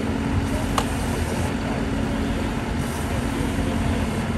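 Fire engine pump running steadily with a low hum, under the hiss of a foam branch spraying into a burning car's engine bay. A short sharp click just under a second in.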